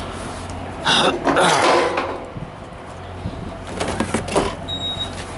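Handling noises at a truck-stop diesel pump: a burst of rustling and scraping, then several clicks and knocks, and a short high electronic beep near the end, over a low steady hum.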